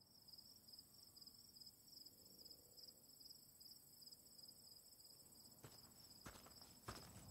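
Faint night ambience of crickets chirping, a steady, evenly pulsing high trill. Near the end a few footsteps begin, about one every half second.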